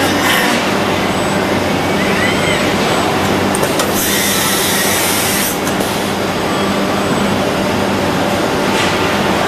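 Steady factory machinery noise from a robotic dashboard-trimming cell, with a constant low electrical hum. A loud hiss cuts in about four seconds in and stops about a second and a half later.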